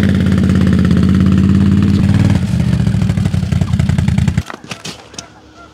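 ATV engine running steadily close by, then stopping suddenly about four and a half seconds in.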